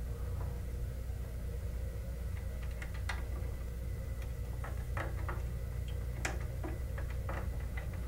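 Small screwdriver and wire clicking and ticking at a screw terminal on a Honeywell VISTA 21iP alarm control board as a keypad wire is fastened down, a few light irregular clicks over a steady low hum.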